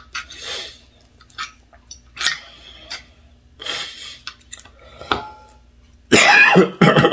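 A fork scraping and clinking against a ceramic plate as it cuts through a pancake, in short separate strokes. Near the end a loud, harsh throat-clearing sound.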